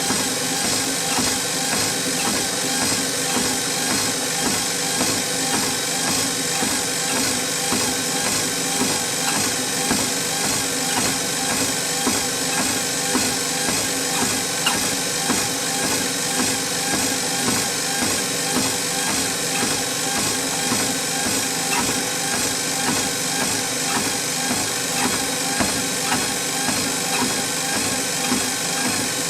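Treadmill running: a steady motor hum with several held tones, under the regular thud of walking footsteps on the moving belt.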